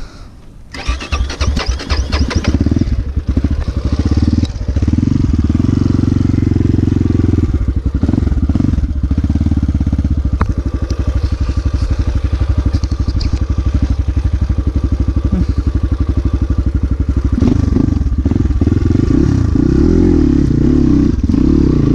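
Off-road motorcycle engine starting up about a second in, then running and revving under load as the rider tries to drive the stuck bike out; the engine's pitch rises and falls near the end.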